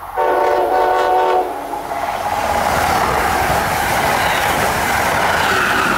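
Amtrak train's horn sounds one blast of about a second, a chord of several tones. The train then passes at speed, a loud rushing of wheels on rail that builds and holds.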